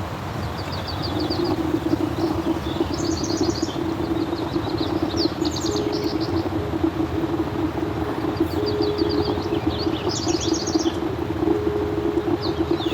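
Electric drip coffee maker brewing, a steady gurgling hiss, while birds chirp in short repeated trills over it.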